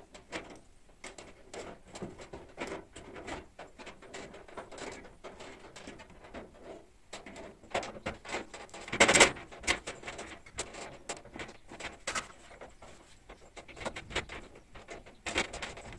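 Pliers tightening the loose nut and bolt of a steel almirah's door-handle mechanism: scattered metallic clicks, scrapes and knocks against the sheet-steel door, with one louder clatter about nine seconds in.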